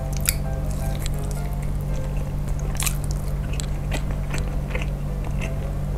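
Close-miked chewing of a soft mozzarella-stuffed meatball: wet, squishy mouth sounds with scattered sharp clicks.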